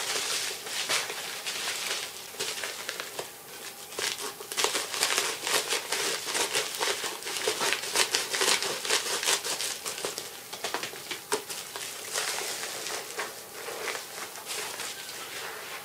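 Plastic bubble mailer crinkling and rustling in a run of irregular crackles as it is pulled open and handled.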